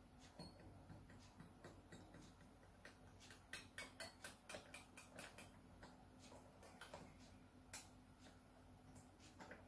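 Faint, irregular ticking clicks as a guitar's tuning pegs are turned by hand to slacken the strings, with a quicker run of clicks around the middle.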